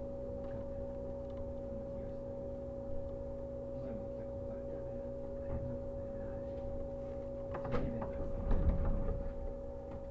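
Interior sound of a JR 115 series electric train car: a steady electrical hum at two fixed pitches over a low rumble. A brief cluster of louder knocks and thumps comes about eight seconds in.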